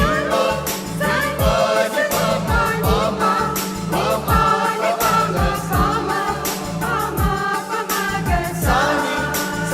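A vocal group singing a Christmas carol with instrumental backing and a steady beat.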